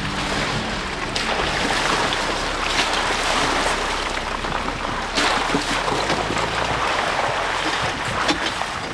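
Jeep Wrangler tyres rolling through muddy water on a dirt trail, a steady splashing of water and mud with a low engine running underneath.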